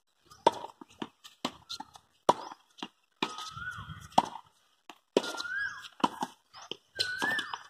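Tennis rally on a hard court: sharp racket hits and ball bounces, about one a second. A pitched call that rises and falls is heard three times behind them.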